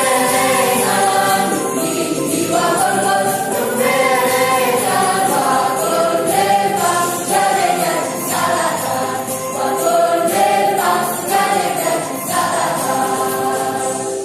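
A choir singing in several parts to a musical accompaniment.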